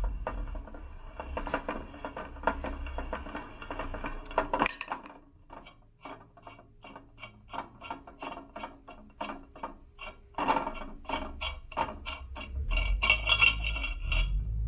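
Rapid, irregular metallic taps and clinks: a flathead screwdriver, struck with a rubber mallet, working the grooves of an elliptical's crank bearing cup to loosen it. The tapping eases off briefly about five seconds in, then picks up again.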